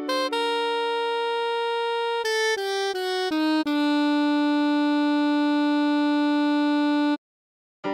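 Synthesized playback of a slow melody: a long note, a quick run of short notes, then a long held note that cuts off abruptly near the end.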